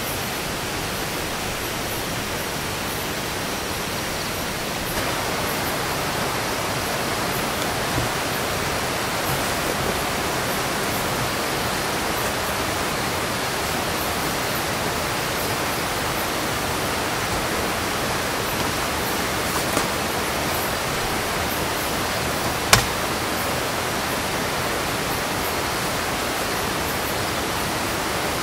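Steady rush of a rocky river flowing, a little louder after about five seconds, with a few light clicks and one sharp click about three-quarters of the way through.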